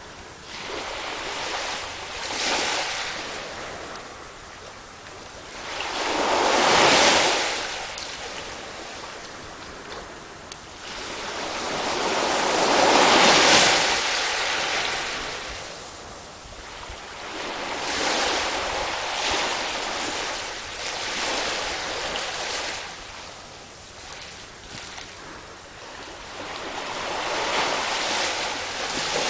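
Ocean waves breaking and washing up on a beach, the surf swelling and fading every few seconds, loudest about seven and thirteen seconds in.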